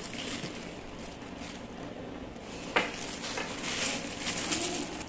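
Plastic glove crinkling and a cloth rag rubbing as gloved hands wipe ink away, with scattered small ticks and one sharp click a little under three seconds in.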